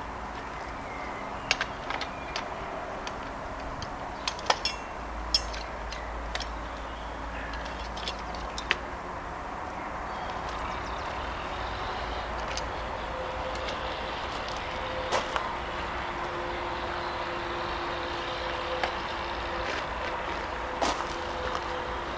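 Scattered metal clicks and knocks from a bike frame being handled and folded up, most of them in the first half, over a steady outdoor background noise.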